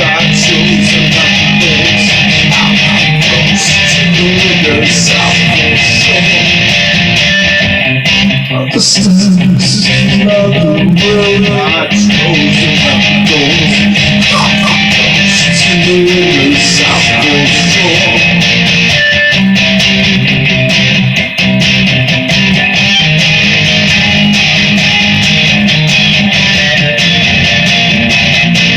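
Electric guitar playing an instrumental passage without vocals, strummed chords mixed with picked single notes, recorded loud on a phone.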